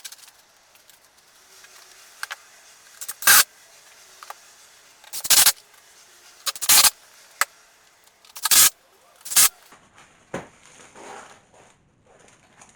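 Roofing felt being tacked to the underside of a wooden roof panel: five loud, sharp strikes one to two seconds apart, with a few lighter knocks and handling noise between them.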